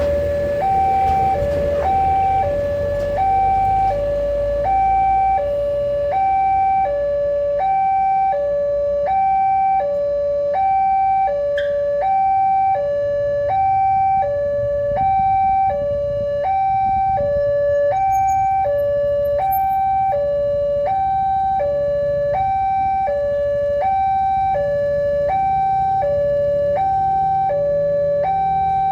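Electronic warning alarm of an Indonesian railway level crossing: a steady two-tone signal alternating between a higher and a lower note, about one high-low pair per second, warning that a train is approaching and the barriers are down.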